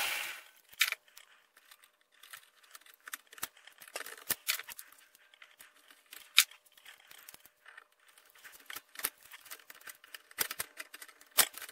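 Pliers gripping and bending heavy stainless steel wire around a metal shaft held in a vise: scattered sharp clicks and ticks of steel on steel, a few of them louder snaps. At the very start a disc sander's running noise cuts off.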